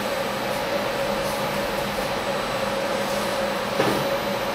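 Steady hum of running machinery, with a low and a mid tone held throughout. A light knock a little before the end as the steel vise is shifted on the machine table.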